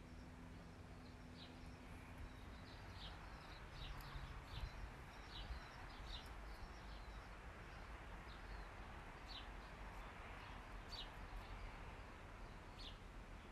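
Faint outdoor ambience: soft hiss with short, high bird chirps about once a second.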